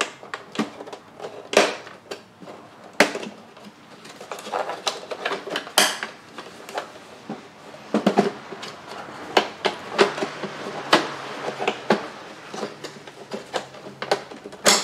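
Irregular plastic clicks, snaps and knocks as the back cover of a GM truck instrument cluster is unclipped from its tabs and worked loose by hand.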